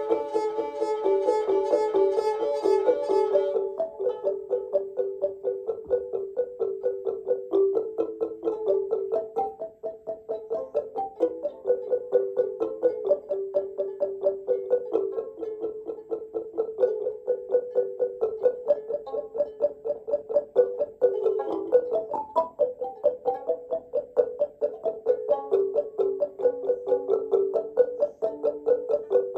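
A plucked string instrument playing a melody in quick, rapidly repeated notes. It is bright and ringing for the first few seconds, then turns mellower.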